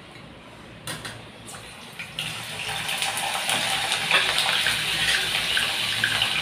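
Vegetable pieces dropped into hot oil in a steel pan about two seconds in, after a soft knock or two, setting off a loud deep-frying sizzle that swells over the next couple of seconds and keeps going.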